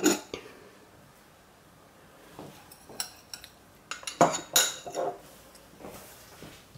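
A plastic measuring jug set down on a wooden tabletop with a knock, then a metal spoon clinking and ringing against a small glass bowl, a few light taps and then a quick cluster of clinks about four seconds in.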